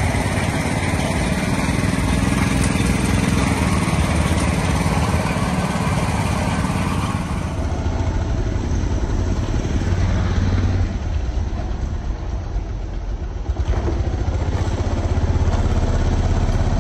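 Street-side noise around a food stall. From about eight seconds a small motorbike engine runs with a steady low hum; it dips for a few seconds and comes back louder near the end.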